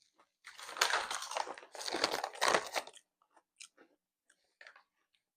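A person chewing and crunching a snack close to the microphone, a dense stretch of crunching for about two and a half seconds that thins out into a few small clicks of chewing.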